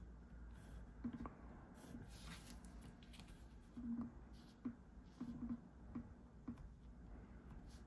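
Drawing on paper: faint scratching strokes and a series of light taps of the drawing tool against the sheet.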